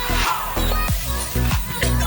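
Background dance music with a steady kick-drum beat, about two beats a second.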